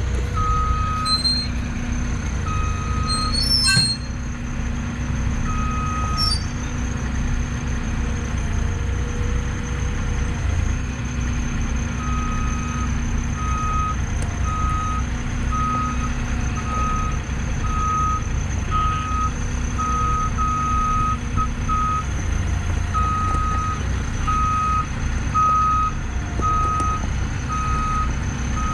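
Truck-mounted forklift's engine running with its reversing alarm beeping: a few beeps in the first seconds, then an even beep a little faster than once a second from about twelve seconds in.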